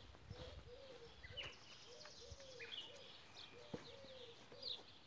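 Faint bird calls: a run of short low calls repeating two or three times a second, with higher chirps from small birds over them.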